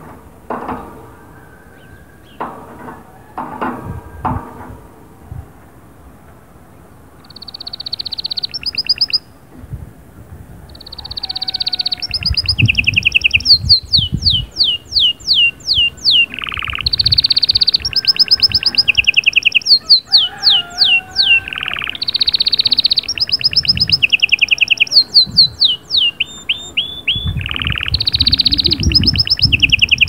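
Canary singing: from about seven seconds in, a long song in repeated phrases, each a held rolling trill followed by a run of quick falling whistles. A few dull knocks come before the song starts.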